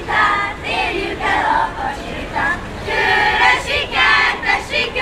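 A group of children singing a Hungarian folk song together.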